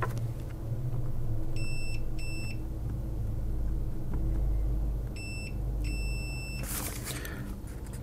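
Multimeter continuity tester beeping as its probes touch the tracks of a keyboard membrane: four short beeps in two pairs, the last held a little longer, each the sign of a closed circuit between the probed points. A brief rustle comes near the end, over a steady low hum.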